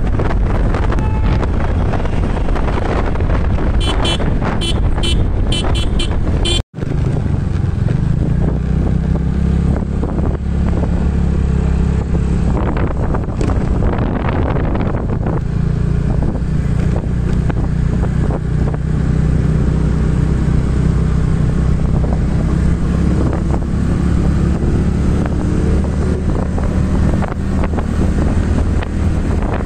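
Vehicle engine running steadily while driving off-road, with wind buffeting the microphone. The sound drops out for a moment about seven seconds in.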